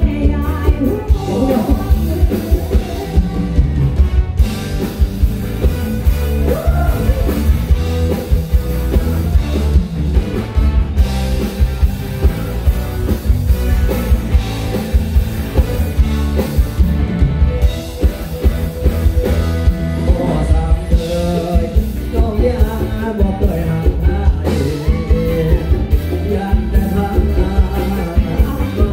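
Live rock-pop band played loud through a stage PA: a woman sings over electric guitar, bass and drums with a steady beat.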